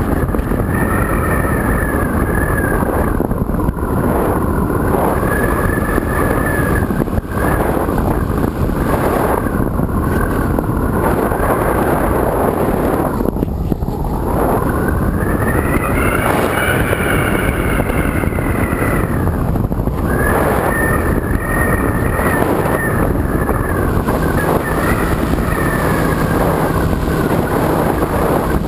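Multiplex EasyStar RC glider in flight: its electric motor and propeller buzz under heavy wind rush on the nose-mounted GoPro's microphone. The pitch falls and rises several times, dipping sharply about halfway through and then climbing to its highest just after.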